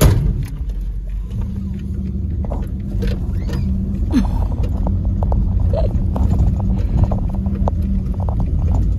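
Pickup truck driving, heard from its open bed: a steady engine and road rumble with frequent short knocks and rattles.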